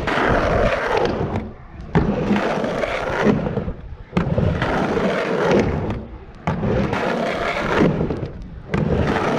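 Skateboard rolling back and forth across a 3-foot mini ramp, the wheel rumble rising and falling with each pass. A sharp clack sounds roughly every two seconds as the board turns at the top of the ramp.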